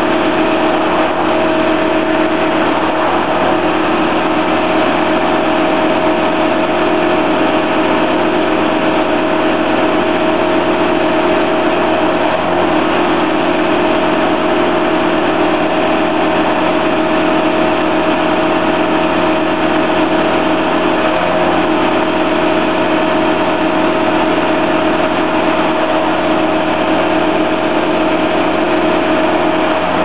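Engines of a tree crew's bucket truck and wood chipper running steadily at a constant speed, a loud, unchanging drone with a fixed hum.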